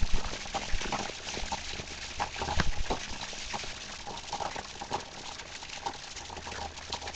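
Heavy rain falling: an even hiss dotted with many small irregular drip and splash ticks.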